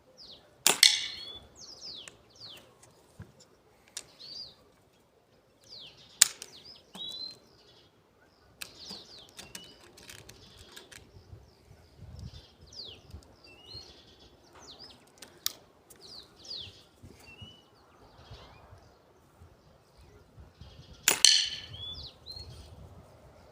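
Artemis CP2 (Diana Chaser) .22 CO2 air rifle firing: a sharp crack about a second in and another near the end, with a few lighter clicks between. Small birds chirp throughout.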